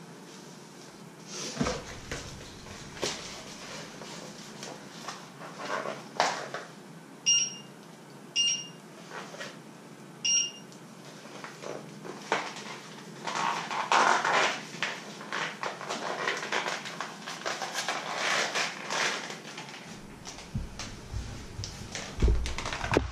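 Kitchen work sounds: scattered knocks and clatter, three short high electronic beeps about a second apart, then a stretch of crinkling as a cardboard fish-finger box is handled and folded.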